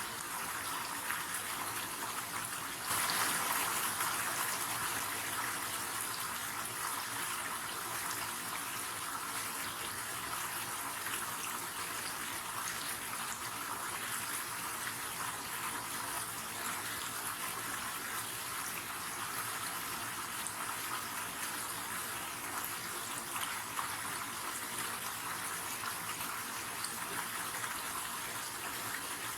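River water flowing steadily, a constant rushing noise, swelling louder for a couple of seconds about three seconds in.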